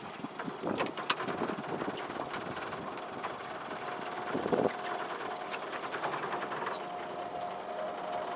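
A small boat engine running steadily, with a faint held whine from about four and a half seconds in and scattered clicks and knocks over it.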